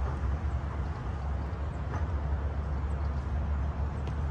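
Wind buffeting the microphone: a steady, low, fluttering rumble, with only faint traces of activity on the field behind it.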